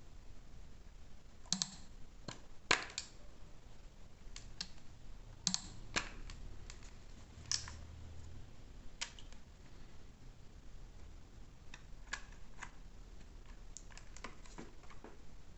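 Light, irregular clicks and taps of objects being handled, about twenty in all, with a few sharper ones in the first half.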